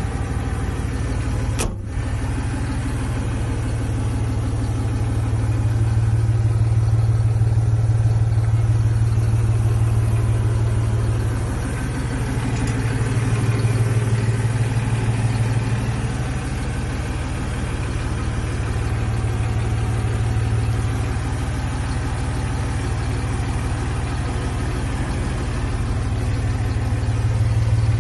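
Massey Ferguson 5610 tractor's four-cylinder diesel engine running, heard from inside the cab, its low, steady note swelling and easing off several times. A single sharp click about two seconds in.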